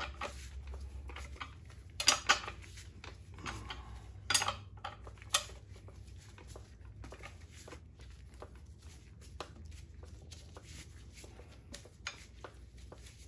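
Metal clinks and clicks of wrenches turning the nut on a dowel pin puller, which draws the dowel pin out of the transmission case. A few sharp clanks come about two and four seconds in and again a second later, then lighter ticks.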